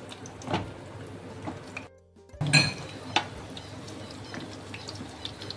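Fish chops in a lentil batter frying in hot mustard oil in a pan, a steady sizzle, broken by several sharp knocks of a spatula on the pan, the loudest about two and a half seconds in. The sound drops out for a moment just before that knock.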